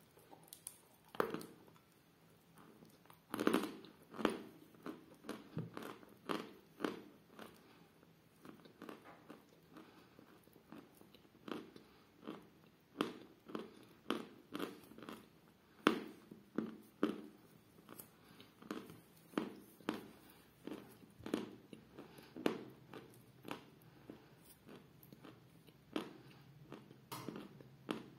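Close-up chewing of a mouthful of soft edible lump chalk of the 'Damsky Kapriz' variety: a long run of crisp, irregular crunches, about one or two a second.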